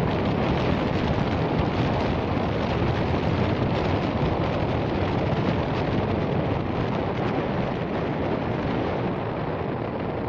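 Heavy wind buffeting a phone's microphone while riding a 70cc motorcycle: a loud, steady, low rushing noise that eases slightly near the end.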